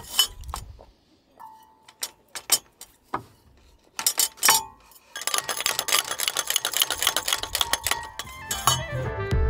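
Sharp metallic clinks and clicks from rigging hardware, a stay tensioner and furling gear, being worked by hand, thickening into a dense run of rapid clicking in the second half. Music comes in near the end.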